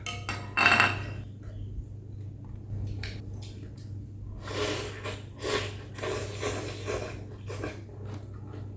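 Close-up eating sounds of a person eating a bowl of bún mắm noodle soup: mouth and chewing noises, with a sharper sound about half a second in and a run of noisy breathy slurps from about halfway through, over a steady low hum.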